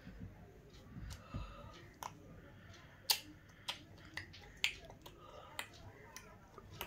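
Quiet room with a series of faint, sharp clicks at irregular intervals, roughly one a second.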